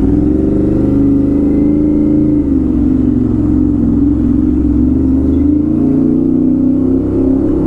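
Aprilia RS 457 parallel-twin engine through an SC Project full-system exhaust, running steadily on the move, its pitch drifting slightly up and down.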